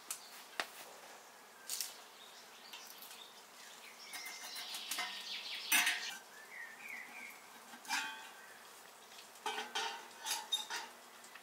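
Metal samovar being handled and set down on a wooden board: scattered clinks and knocks of metal, the loudest about six seconds in and a quick cluster near the end.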